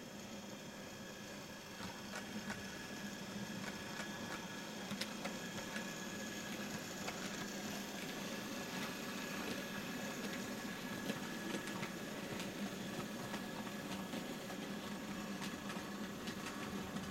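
OO gauge model Class 37 locomotive running with its train of wagons: a steady whirr from the small electric motor and gears, with scattered clicks of wheels over rail joints, getting louder about two seconds in as the train comes closer.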